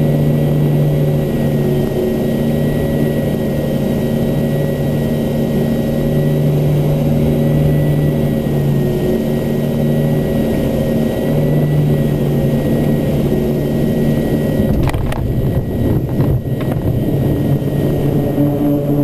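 Cockpit drone of a C-2A Greyhound's twin turboprop engines and propellers on final approach to a carrier, a steady hum with a thin high whine over it. About fifteen seconds in, a jolting thump and a second one just after as the plane touches down on the carrier deck and is arrested, after which the engine note changes.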